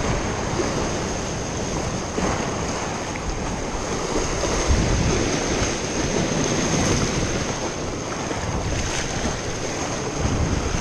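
Surf surging and washing over shoreline rocks, with wind buffeting the microphone.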